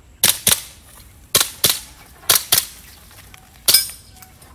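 Airsoft pistol fired in quick double taps: three pairs of sharp pops about a second apart, then another shot near the end.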